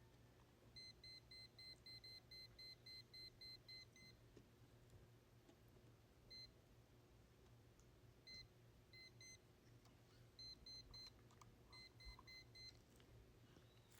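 Faint electronic beeping: a fast run of about a dozen short, same-pitched beeps at roughly three to four a second, then scattered single beeps and short groups of two or three.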